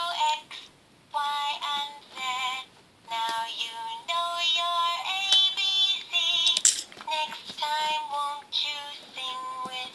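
Electronic sound panel of a children's ABC book playing a tinny synthesized sung melody in short phrases with brief gaps between them.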